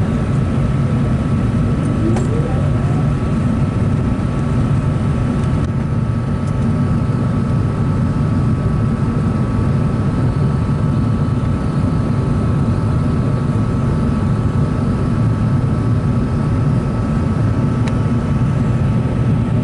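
Cabin noise of an Airbus A380 airliner climbing after take-off: a steady, loud rumble of its Rolls-Royce Trent 900 engines and airflow, with a thin steady whine on top.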